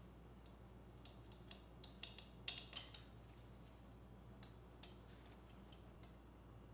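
Faint light clinks of head bolts being handled and set into the cylinder head of a Briggs & Stratton OHV engine: a few scattered clicks in the first three seconds, the clearest about two and a half seconds in, and a couple more near five seconds, over a low steady hum.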